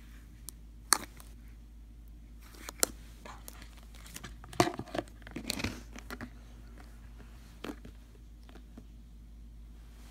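Thick green slime being squeezed and kneaded by hand in a plastic tub: scattered sticky crackles and pops, with a dense run of them about halfway through.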